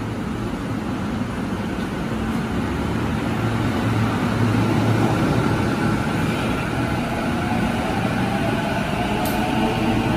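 JR Chuo Line E233 series electric train pulling away from a standstill and accelerating, its motor whine rising in pitch over the wheel and rail noise. A short sharp click about nine seconds in.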